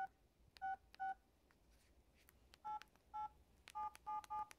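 Samsung SCH-U320 flip phone's keypad beeping as keys are pressed to type a text: short two-tone beeps, three in the first second, a pause, then a quicker run of five. The pitch changes between groups as different keys are pressed.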